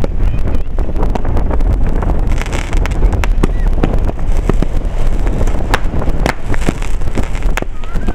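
Fireworks going off in a string of sharp bangs and crackles, denser in the second half, over heavy wind rumble on the microphone.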